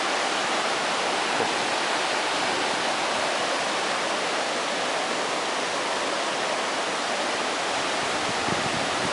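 Floodwater of a swollen creek rushing past in a steady, unbroken roar of moving water.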